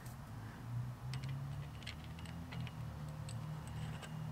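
Worm-drive hose clamp on an aluminium antenna tube being tightened with a screwdriver: irregular small clicks as the screw turns, over a low steady hum.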